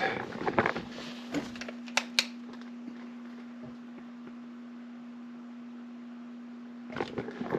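A steady low electrical hum, with two sharp clicks close together about two seconds in.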